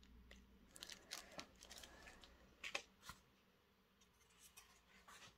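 Faint handling noise: a small plastic bag of model-train detail parts crinkling, with a few light clicks, mostly in the first three seconds.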